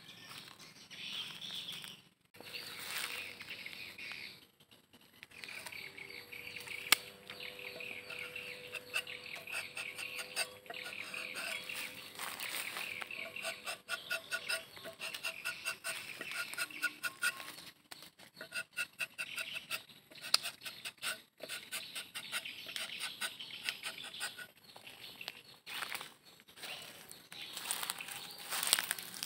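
Rubber-tapping knife rasping through the bark of a rubber tree's low tapping panel, shaving off a thin strip in short scraping strokes with brief pauses between them.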